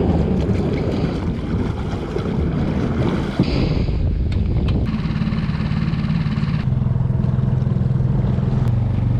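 Small outboard motor running as the skiff gets under way, with wind and water noise. About two-thirds of the way through its note steps up as the throttle is opened.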